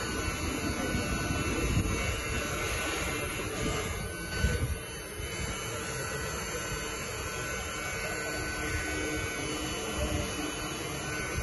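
Steady electrical buzz and hum from the powered-up ground power unit and start equipment, with the J34 turbojet not yet turning. There is a short bump about four and a half seconds in.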